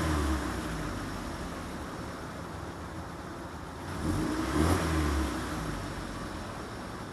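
Car engine running, its revs rising and falling twice: once at the start and again about four seconds in.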